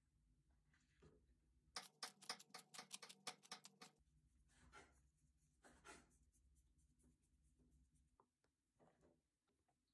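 Pepper being dispensed over raw shrimp: a quick run of scratchy ticks, about seven a second, lasting about two seconds, followed by a few single soft scrapes.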